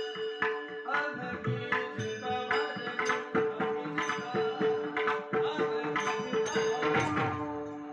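Marathi devotional bhajan music: tal hand cymbals and hand-drum strokes keep a steady rhythm over a single held drone note.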